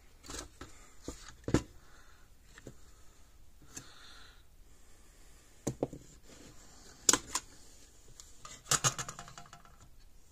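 Scattered sharp clicks and clatter of hands working on a fence charger's parts, as a plug-in circuit board is popped out of the unit; the loudest knocks come about a second and a half in, about seven seconds in, and a quick cluster about nine seconds in.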